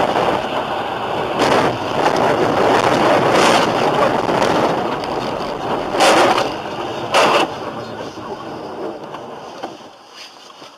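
Rushing road and wind noise from a moving vehicle, surging several times and fading toward the end.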